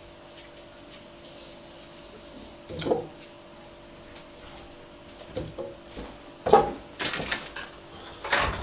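Hands unwrapping a piece of raw pork and setting it on a wooden cutting board: scattered rustles and light knocks over a faint steady hum.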